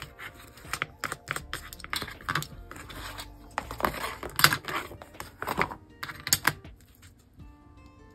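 Paper and card being handled during paper-craft box making: an irregular run of light taps, clicks and rustles, busiest in the middle and thinning out near the end.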